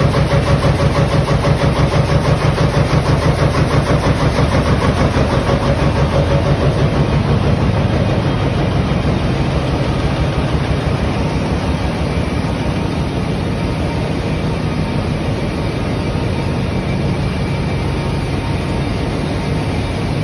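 Bobst FFG 8.20 Expertline corrugated-box folder-gluer running at production speed, about 22,200 boxes an hour: a fast, even mechanical beat of about six strokes a second over a steady machine hum. The beat fades about eight seconds in, leaving a more even running noise.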